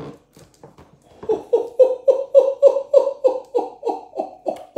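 A man laughing excitedly in a long, even run of short pitched bursts, about three or four a second, starting about a second in.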